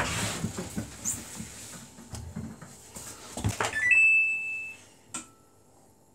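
A Samsung WF80F5E0W4W front-loading washing machine winds down from an extremely unbalanced spin, its drum knocking less and less. About four seconds in, the control panel gives a short rising chirp and then a long beep as the spin ends. A single click follows.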